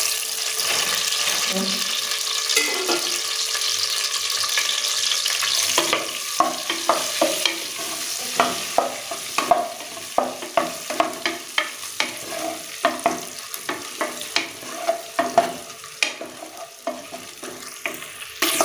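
Whole boiled eggs frying in hot oil in an aluminium pressure cooker: a steady sizzle, loudest in the first few seconds. From about six seconds in it thins, and frequent sharp clicks and pops come as the eggs are stirred and turned with a spatula.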